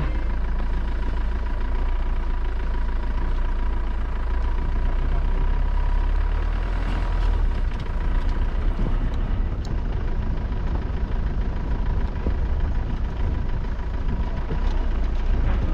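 Motor vehicle running on the road: a steady low rumble with a faint steady whine over it.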